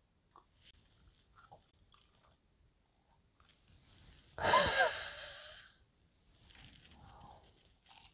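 A woman's loud, breathy vocal exhale with a wavering pitch about four seconds in, as she bites into a piece of fried chicken, followed by soft chewing.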